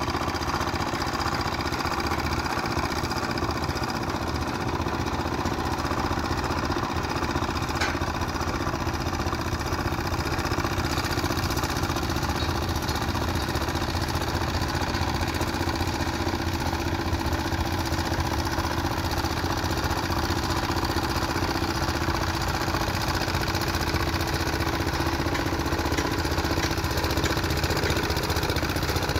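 Plate compactor with a Robin engine running steadily, its plate vibrating rapidly against loose dirt as it is walked along.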